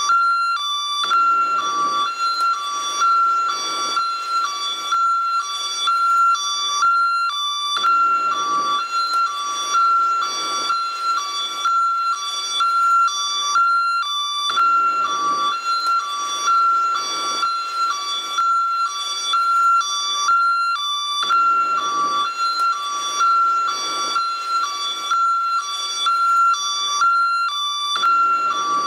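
American ambulance hi-lo siren, a loud electronic two-tone wail switching steadily back and forth between a higher and a lower pitch.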